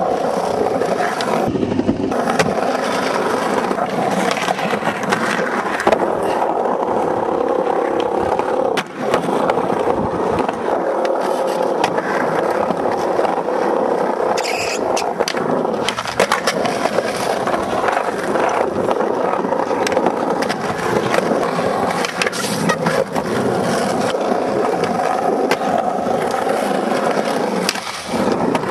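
Skateboard wheels rolling continuously over a skatepark surface, with sharp clacks of the board popping and landing every few seconds.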